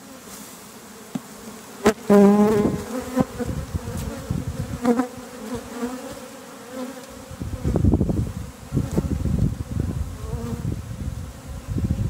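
Honey bee swarm buzzing steadily, with a loud wavering buzz about two seconds in as bees come close to the microphone. From about seven seconds in, low uneven rumbling noise on the microphone joins the buzz.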